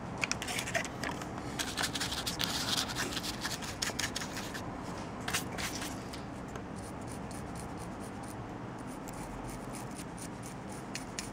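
Paintbrush bristles dry brushing a plastic miniature part: quick scratchy strokes with small clicks for the first six seconds or so, then softer, steadier brushing.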